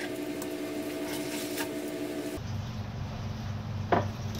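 Knife cutting a raw salmon head on a wooden cutting board: a few faint taps and crunches over a steady hum, with a sharper knock near the end. The hum changes abruptly to a lower tone a little past halfway.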